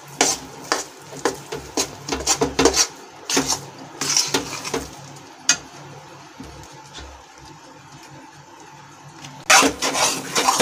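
Metal spoon scraping and stirring besan roasting in ghee in a metal kadhai on a low flame, in quick irregular scrapes. The stirring pauses for a few seconds around the middle and starts again near the end.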